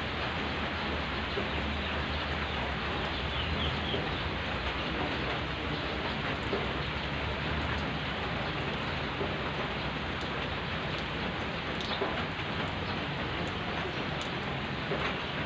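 Steady rain falling on a wet gravel road and surrounding foliage, an even, unbroken hiss.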